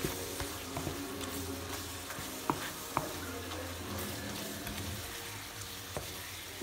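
Chopped pineapple cooking down in sugar syrup in a nonstick wok, sizzling steadily while a wooden spoon stirs and scrapes through it, with a few sharp knocks of the spoon against the pan. The syrup is reducing toward dry as the filling is stirred often.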